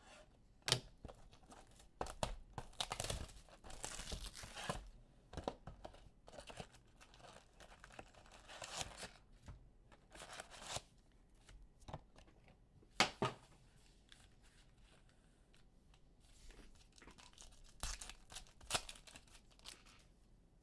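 Trading card packs and their box wrapping being torn open and crinkled, in irregular bursts of ripping with a few sharp snaps.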